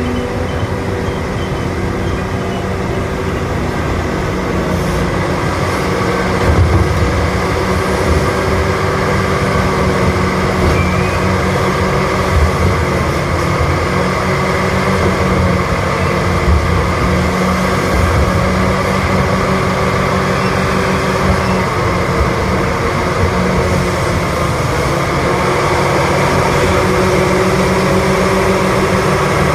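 Heavy diesel engines of a Caterpillar 6030B hydraulic mining excavator running steadily under load while it digs and loads a haul truck. The low end swells and dips now and then through the middle.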